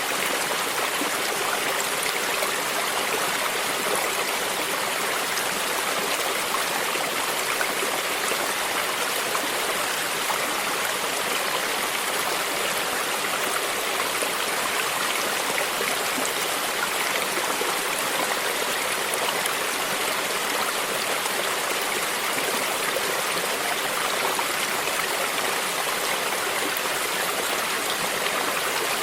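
Small stream flowing with a steady, even rush of water and water lapping close by.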